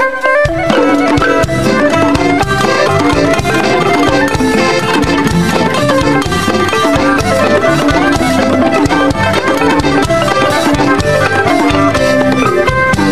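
Live Cambodian traditional ensemble music: a two-string fiddle and a zither over a steady drum beat, the full band coming in about half a second in after a held fiddle note.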